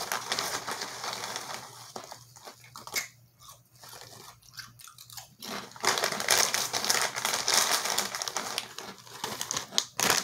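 Potato chips being crunched and chewed close to the microphone, a dense crackling that grows louder about halfway through.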